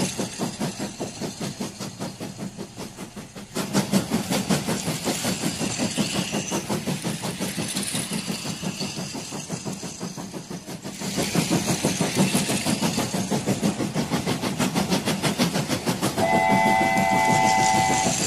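Battery-powered toy train running on plastic track: its small motor and wheels make a rapid, even clicking rattle that rises and falls in loudness between shots. Near the end a steady electronic tone sounds for about two seconds.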